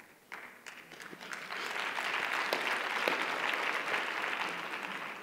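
Audience applauding: scattered claps start a moment in, build into a full round of clapping by about two seconds, and fade out near the end.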